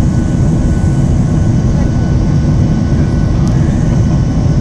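Inside the cabin of a Boeing 737-800 climbing after takeoff: its CFM56-7B turbofan engines give a loud, steady roar, with a few faint steady whining tones above it.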